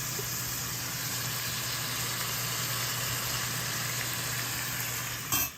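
Ground meat sizzling in a frying pan, a steady hiss over a low hum, with a brief louder rustle near the end before the sound cuts off.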